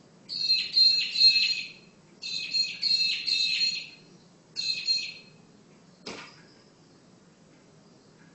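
A bird calling in three bursts of rapid, high chattering. About six seconds in comes a single sharp tap, the bird striking the window glass.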